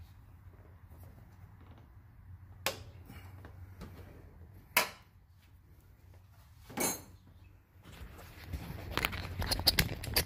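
Handling noises from hands working around a car's engine bay and belt: two sharp clicks a couple of seconds apart, a short scraping knock, then a busier run of clicks and rattles near the end. A faint low hum runs underneath.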